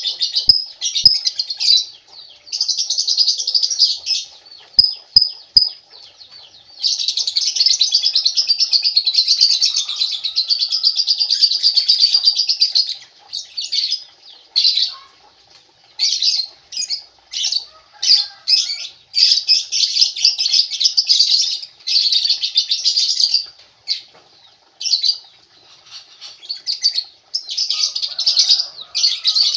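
Lovebird chattering: long runs of rapid, shrill, high-pitched calls lasting from a second to several seconds, broken by short pauses.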